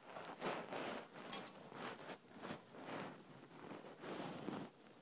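Quiet, irregular rustling and light scraping as hands and a bare arm handle a Blue Yeti microphone on its desk stand. The rustles come at roughly two a second, with a small click about a second in.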